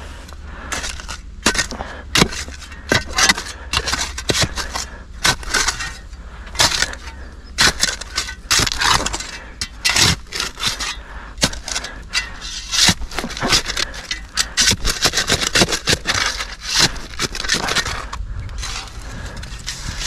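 Digging by hand in a dump of soil, broken glass and crockery: a tool scraping and striking in quick, irregular strokes, over a steady low rumble.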